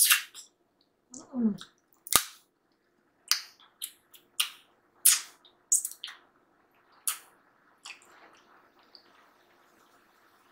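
Close-up crunching of fried chicken drumstick bones between the teeth: about a dozen sharp cracks and snaps at irregular intervals as the bone ends are chewed for the marrow. A short hum a little over a second in.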